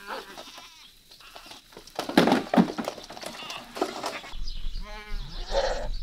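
Goats bleating, with one long wavering bleat about five seconds in. Around two seconds in there are a few sharp knocks and clatter, the loudest sounds here.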